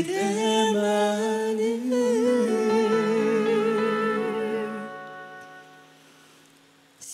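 Man and woman singing a slow ballad duet in two-part harmony, holding long notes. The voices and the music fade away to near silence about five seconds in.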